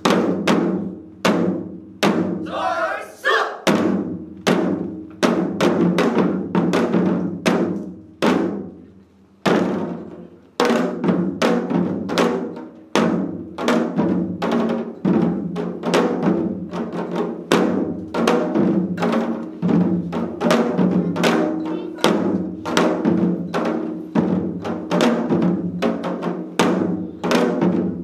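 Several janggu hourglass drums played together in a fast rhythmic pattern of sharp, crisp strikes over a deeper booming resonance. About nine seconds in the beating thins out and briefly pauses, then resumes denser and continues.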